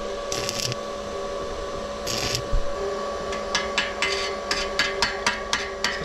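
Stick-welding work on a steel drain grate of rebar and angle iron: two short hissing bursts early, then a run of sharp metallic taps on the steel, about two to three a second, over a steady hum.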